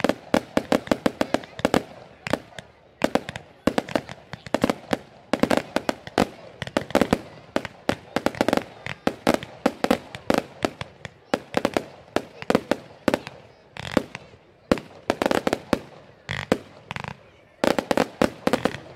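Fireworks display: rapid volleys of aerial shell bangs and crackle, several reports a second, with a brief lull near the end before the firing picks up again.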